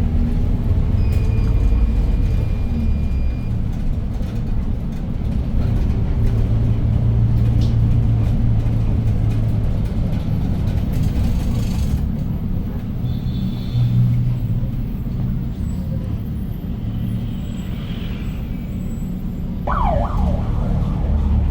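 Interior of a Hyundai New Super Aerocity city bus under way, its C6AF CNG engine running with a deep steady drone that swells and eases with the driving. A short falling squeal comes near the end.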